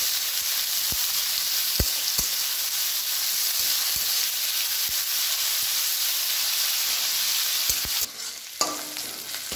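Sliced onions sizzling as they fry in hot mustard oil in a metal kadai, stirred with a metal spatula that clicks and scrapes against the pan now and then. The sizzle cuts off suddenly near the end.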